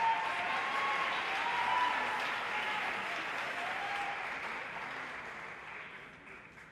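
Rink audience applauding and cheering, with a few voices calling out, dying away over the last couple of seconds.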